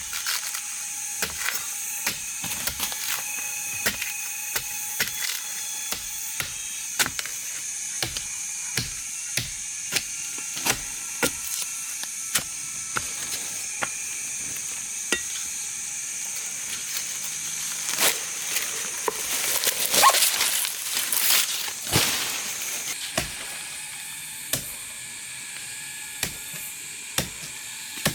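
Repeated sharp chopping strokes of a blade into plant stems or wood, roughly one or two a second, over a steady high hiss. A louder, rougher stretch of strokes comes about two-thirds of the way through.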